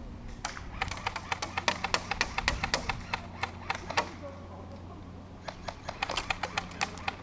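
Airsoft guns firing in two volleys of rapid shots: about three seconds of quick sharp cracks starting about a second in, then after a short pause a second, shorter string of shots.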